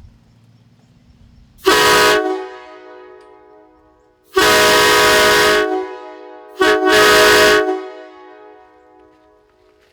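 PVC replica of a K5LA five-chime train horn sounding its chord in three blasts: a short one, a longer one, then a third that stutters briefly as it starts. Each blast trails off over a couple of seconds.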